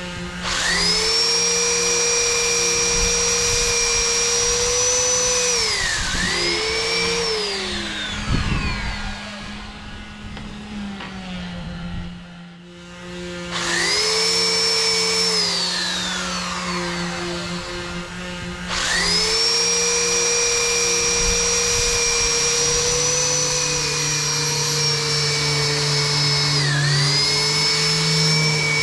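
Electric power sander sanding teak, its motor whine running steadily. It winds down and starts up again twice, and its pitch dips briefly under pressure. A steady lower hum runs underneath.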